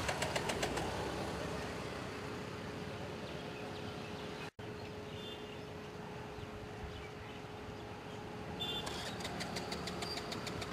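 Road traffic: vehicle engines running and passing, with short runs of rapid clicking at the start and again about two seconds before the end. The sound cuts out completely for a moment about four and a half seconds in.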